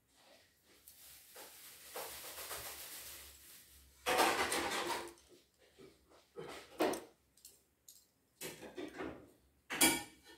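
Loose plastic Lego pieces being handled, rattling and clattering in several separate bursts, with a softer rustle early on. The loudest clatter comes about four seconds in, and a sharp click comes just before the end.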